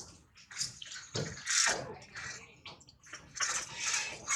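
Water splashing and sloshing in irregular bursts, with two louder swells about a second and a half in and near the end.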